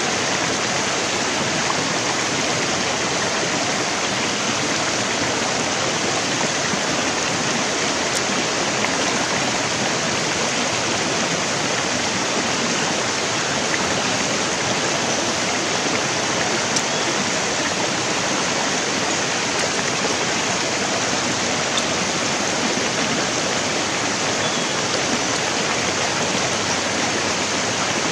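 Shallow stream running over rocks: a steady, even rush of flowing water.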